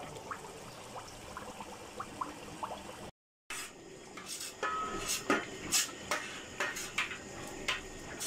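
Pot of curry simmering with faint bubbling. After a brief dropout about three seconds in, a steel ladle and spoon scrape thick masala off a metal tray into a large metal pot, with repeated metal-on-metal clinks and scrapes.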